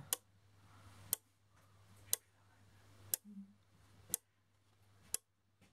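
Relays on an eight-channel relay board clicking in turn, a sharp click about once a second, six in all, as a script steps through them, switching each lamp on for a second.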